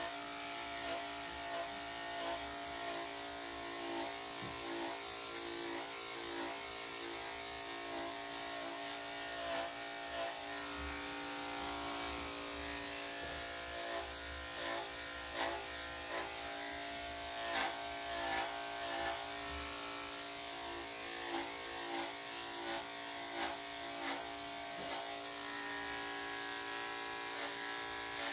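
Corded electric dog clippers fitted with a #7 blade running with a steady buzzing hum as they shave a Lhasa Apso's coat, with many short clicks as the blade works through the hair.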